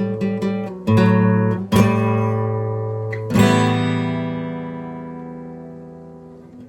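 Acoustic guitar strumming chords: a few strums, then a chord about three and a half seconds in that is left to ring and slowly fade away.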